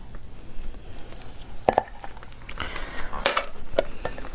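Handling clicks of an easy-open canned-food container with a metal pull-ring lid being readied for opening: one sharp click near the middle and a cluster of clicks and scrapes near the end as fingers work at the pull ring.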